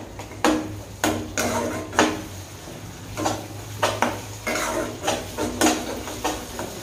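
A spatula stirs and scrapes thick masala gravy around a non-stick kadai in irregular strokes, about one or two a second. The curd has just gone into the masala, and it is being kept moving so that it does not split.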